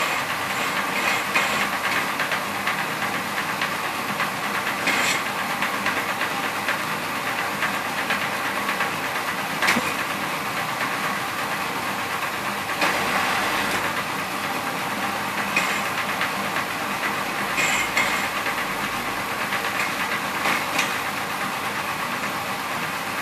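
Satay-skewer shaving machine running steadily, planing bamboo into skewers, a continuous mechanical rattle with a sharp clack now and then.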